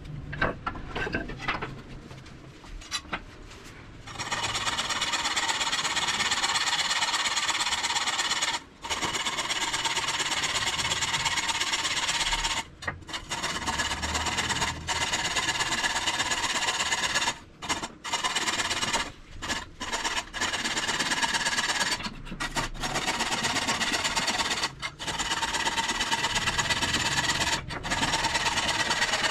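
An electric power tool's motor runs with a steady high whine in long stretches. It starts about four seconds in, after some quieter handling knocks, and stops briefly several times.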